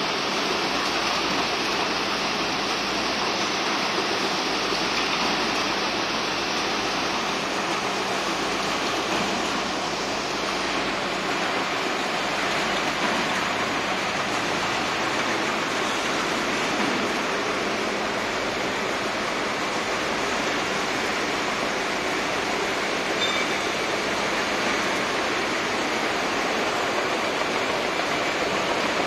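Automatic carton folder-gluer running: a steady, even rushing machine noise from its belts, rollers and feeder.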